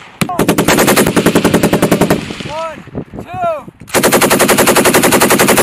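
Belt-fed machine gun firing two long bursts of rapid shots, the first ending about two seconds in and the second starting about four seconds in. A few short rising-and-falling whines sound in the pause between them.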